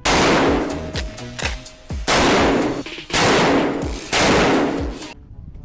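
Four loud gunshot-like blasts, each fading over about a second, coming about one to two seconds apart, over background music.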